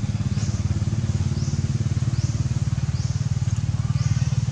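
A motor running steadily, its low rumble unchanging, with a short rising high-pitched chirp repeating about once a second above it.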